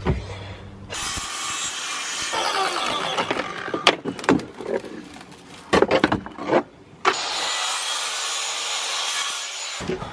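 A boat's fiberglass-covered floor and the rotted plywood under it being cut and torn out: a rasping, saw-like noise with several sharp cracks, stopping and starting abruptly.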